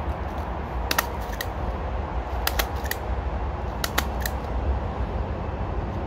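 A desk stapler is pressed by hand through leaves and a paper headband, giving sharp stapling clicks in three quick clusters: about a second in, halfway through, and about four seconds in. A steady low rumble runs underneath.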